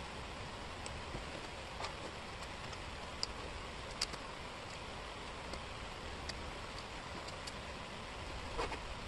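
Wooden jigsaw puzzle pieces clicking and tapping on a table as they are handled, a few sharp clicks scattered over a steady hiss.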